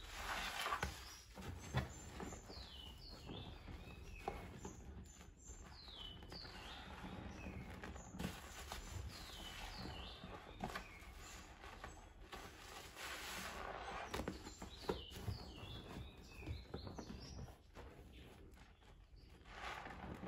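Soap-soaked yellow sponges squelching as hands squeeze them in a basin of thick foam, with foamy water streaming and dripping back into the basin. Clusters of short, high, falling chirps come and go several times.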